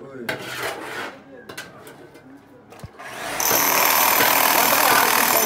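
An electric rotary hammer drill starts about three seconds in and runs steadily at full power, boring into a concrete floor, with a high whine over the grinding. Voices come before it starts.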